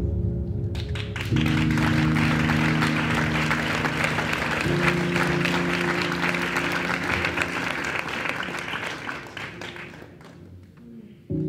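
Audience applauding over held music chords. The clapping starts about a second in and dies away near the end, and the music cuts out briefly before coming back.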